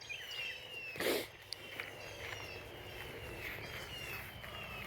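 Birds calling: many short, high whistled notes, each sliding down in pitch, repeating throughout. A brief rustling noise about a second in.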